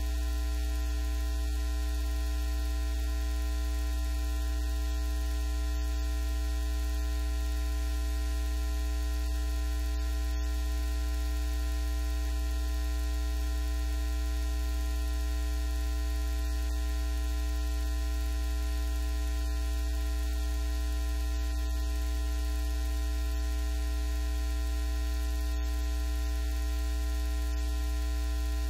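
Steady low electrical mains hum with several fainter steady tones above it, unchanging and with nothing else heard over it.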